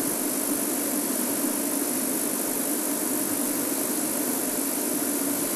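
Game-drive vehicle's engine idling steadily, a low hum under a constant hiss.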